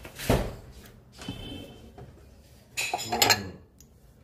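A kitchen drawer knocks as it is pulled open, then ceramic bowls clink against one another as they are handled in the stack, loudest about three seconds in.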